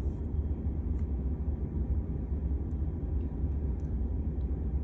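Steady low rumble of a farm vehicle running, heard from inside its cab, with a few faint ticks.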